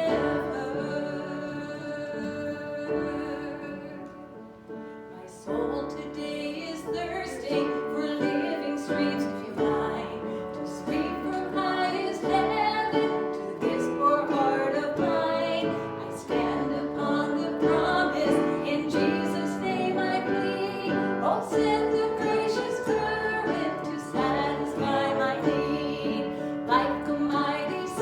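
Worship music: a woman singing with piano accompaniment, easing off briefly about five seconds in, then continuing.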